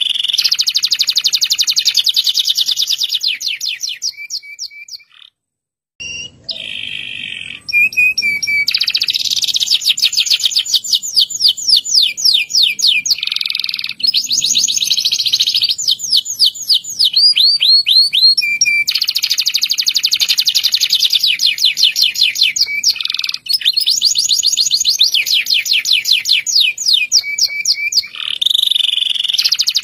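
Local canary singing long rolling trills: fast runs of rapidly repeated high notes. The song breaks off briefly about five seconds in, then resumes and runs on.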